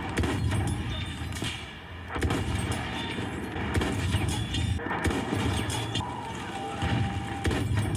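Video game battle sound from a first-person shooter: a vehicle engine rumbles under scattered gunshots and impacts, with a music score underneath.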